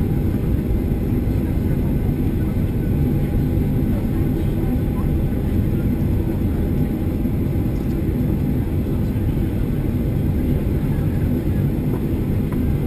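Boeing 737-800's jet engines running, a steady heavy rumble with faint whining tones above it.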